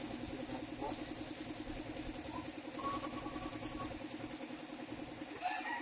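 A motor running steadily at an even idle, with a low, regular pulse.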